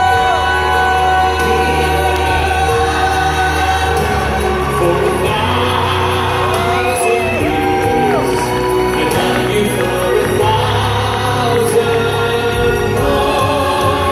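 A man singing live into a handheld microphone over amplified backing music, holding long notes that slide up and down in pitch.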